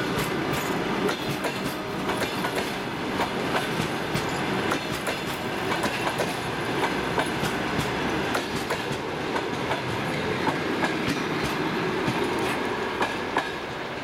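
Passenger coaches of a departing train rolling past, their wheels clicking over the rail joints in a steady clatter over a rumble. The sound begins to fall away near the end as the last coach goes by.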